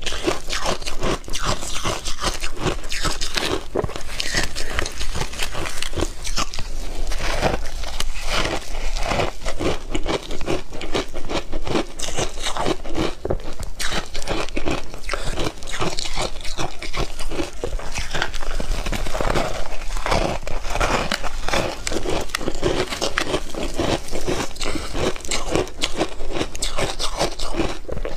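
Ice being bitten and chewed: a dense, continuous run of crisp crunches and crackles as big chunks of a matcha-dusted ice block break between the teeth.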